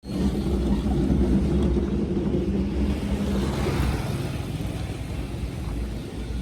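Motor vehicle engine running with a steady low rumble; a hiss swells briefly about three and a half seconds in.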